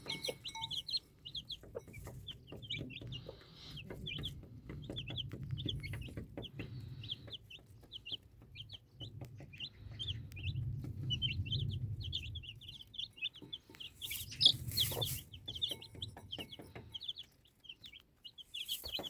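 A brood of Woorimatdak chicks peeping constantly in quick, high chirps, over a hen's low clucking. A short loud rustle or knock comes about two-thirds of the way through.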